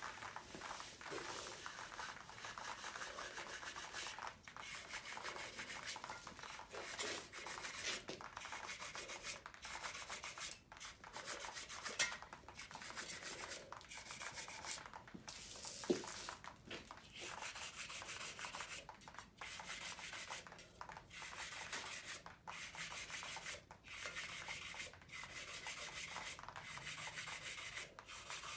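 Brush scrubbing a bare small-block 350 V8 engine block soaked in degreaser: rasping back-and-forth strokes about once a second. A brief hiss and two sharp clicks come near the middle.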